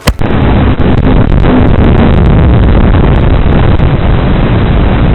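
Loud, steady rumbling of a motor mixed with wind noise, in muffled low-quality audio, cutting in suddenly.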